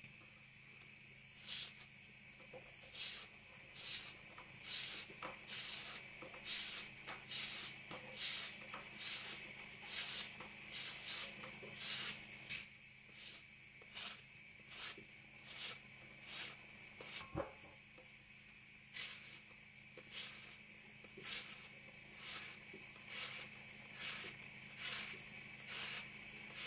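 Y-shaped vegetable peeler scraping the skin off a raw potato and then a carrot, in short strokes one or two a second.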